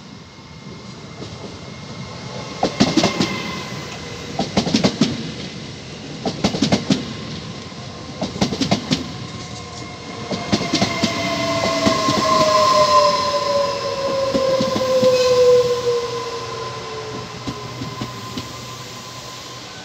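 Double-unit Alstom Coradia Stream 'Pop' (ETR104) electric train rolling into the station and slowing. Its wheels clatter over rail joints in clusters about every two seconds, and from about halfway a falling electric whine sets in as it decelerates.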